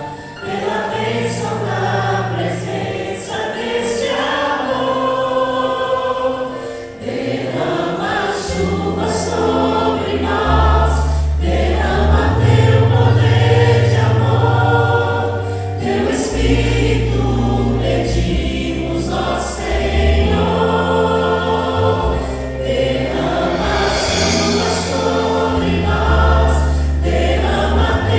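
Choir singing a Christian gospel song with accompaniment. A deep bass line of held notes joins about eight seconds in.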